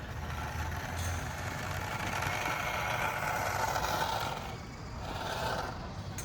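Military-style RC truck driving, its motor and gears whirring, building up and then easing off about four seconds in, with a second short surge near the end.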